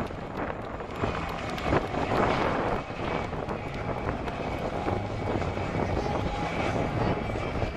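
Mi-2 helicopter flying a low pass: the steady high whine of its twin turboshaft engines over the continuous beat of the main rotor.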